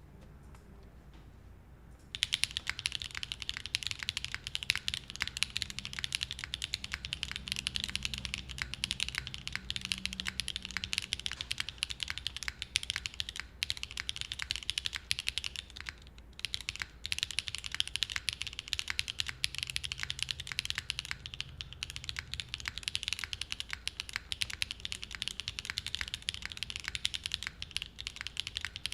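Fast, continuous typing on a QK60 mechanical keyboard with Gateron Smoothie linear switches, a POM plate and GMK doubleshot ABS keycaps. The keystrokes begin about two seconds in, with a brief pause about halfway through.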